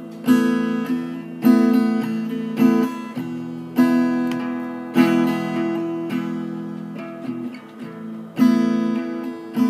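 Acoustic guitar strumming chords in an instrumental passage of a song, with no singing. There is a strong strum about every second, and past the middle one chord is left to ring out longer before the strumming picks up again.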